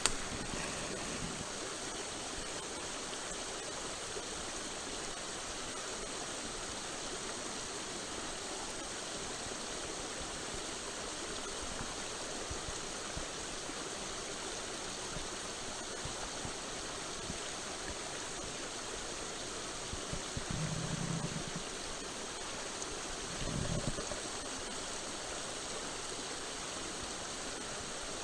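Small mountain stream running steadily over rocks, a continuous rushing babble. Two brief low bumps come in about two-thirds of the way through.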